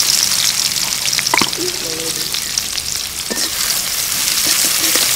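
Chopped onion and garlic sizzling steadily in hot oil in a large metal karahi, with a few sharp clicks of a metal spatula against the pan as they are stirred.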